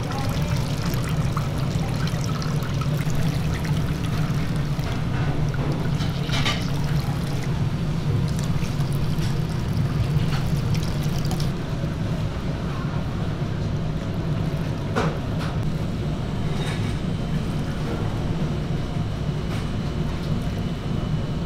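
Carrot juice being wrung by hand out of a cloth bag of blended pulp, pouring and dribbling into a stainless steel pan, over a steady low hum, with a few short clicks.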